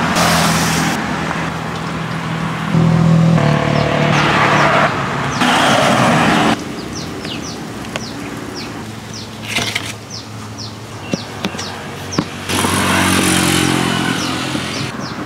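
Road traffic passing close by: motor vehicles going past with an engine hum that swells and fades, loudest from about three to six and a half seconds in and again near the end.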